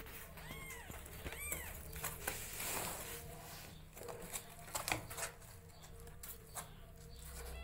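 Newborn kittens crying for milk with short, high, arched mews, two clear ones in the first second and a half. Rustling and a few small clicks follow as they squirm on the blanket.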